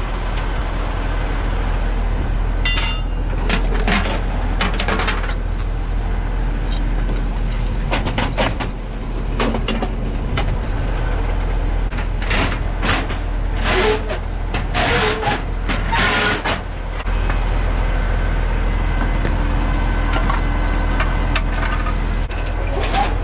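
Car-hauler truck's diesel engine idling steadily, with repeated metallic clanks and clicks of tie-down strap ratchets being tightened on the loaded cars, including a quick run of ratchet clicks about three seconds in.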